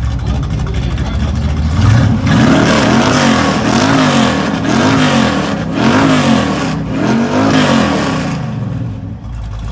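A car engine running, then revved over and over from about two seconds in, each rev rising and falling in pitch about once a second, before easing off near the end.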